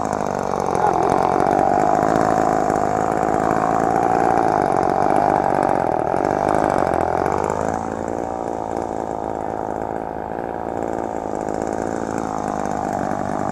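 Chainsaw engine running at high speed for several seconds, then dropping back to a lower, quieter running about eight seconds in.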